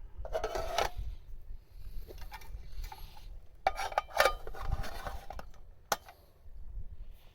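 Camp gear being handled: two spells of clattering and clinking, each about a second long, and a single sharp click a little before the end.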